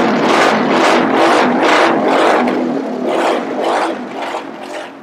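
Newly built four-stroke prototype kart engine running on its first start, swelling and easing in a regular pulse about twice a second. It runs with no strange noises, as its builder judges it, and dies away near the end.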